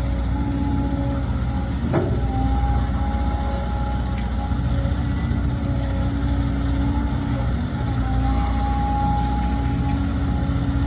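Volvo EC200D excavator's diesel engine running steadily, with a high whine coming in twice for a couple of seconds and a sharp knock about two seconds in.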